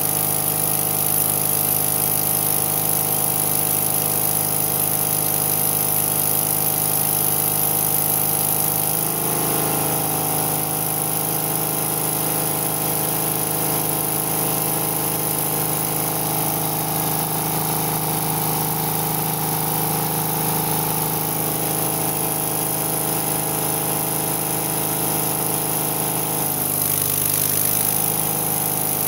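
Arc welding: the arc hisses and crackles for roughly the first nine seconds, stops, then strikes again near the end. Under it an engine runs steadily throughout, its pitch shifting when the arc stops and again when it restarts.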